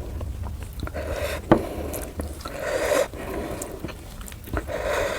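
Close-miked eating sounds: a person chewing puri with chicken curry, in soft repeated swells of mouth noise, with a single sharp click about a second and a half in.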